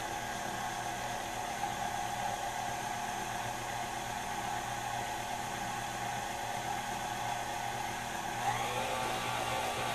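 KitchenAid stand mixer running steadily, its motor whirring as it beats thick brownie batter with flour being mixed in; near the end its pitch rises.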